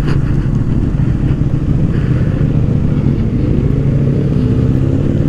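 Honda Rebel 500's parallel-twin engine running under way, heard from the bike; its note holds steady, then rises gently from about three seconds in as it picks up revs.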